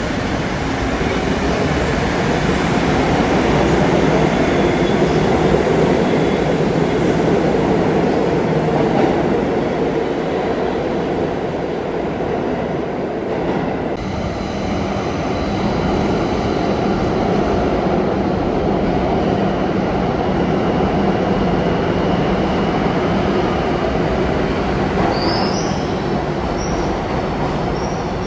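New York City Subway train running through the station, a loud steady rumble of steel wheels on rail. Near the end high-pitched wheel squeal sets in.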